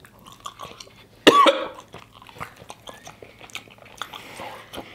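A man coughs once, loud and sharp, about a second in, from the burn of very spicy fried chicken. Small chewing and mouth clicks run between, and near the end he blows out a breath through pursed lips against the heat.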